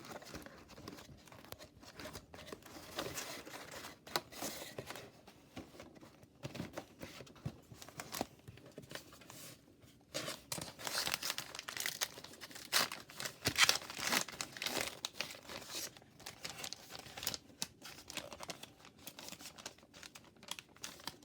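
Crinkling and tearing of a hockey trading-card pack wrapper being opened and handled by hand: irregular crackles, busiest and loudest about halfway through.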